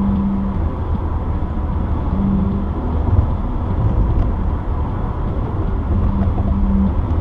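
Steady road noise inside a car moving on the highway: a low rumble of tyres and engine, with a low hum that comes and goes a few times.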